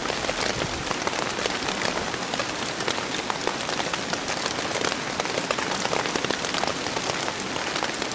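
Heavy rain falling on a nylon poncho shelter overhead: a steady, dense patter of countless drops.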